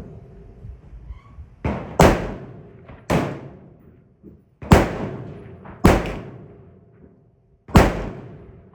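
Gunshots at an outdoor shooting range: five loud shots and one softer one, irregularly spaced, each with a long fading echo.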